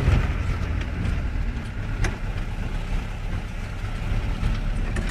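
Vehicle engine running with low rumbling road noise, heard from inside the cabin while driving, and a single sharp click about two seconds in.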